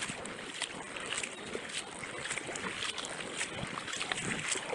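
Kayak paddle blades dipping and splashing in the water in irregular strokes, over a steady rush of water along the hull of an inflatable kayak.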